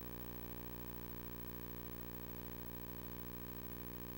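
Steady electrical hum, a low buzz with a stack of even overtones that holds unchanged throughout, over a faint hiss.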